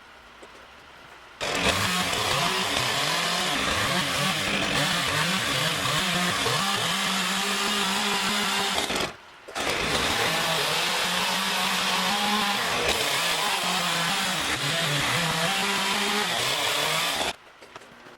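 Chainsaw running and cutting wood, its engine note wavering as it works, in two long stretches. It starts about a second and a half in, breaks off briefly about halfway through, and cuts off sharply near the end.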